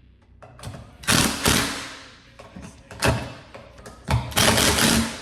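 A series of loud knocks and bumps, with one longer clatter near the end, as the removed stainless-steel fridge door is handled and moved.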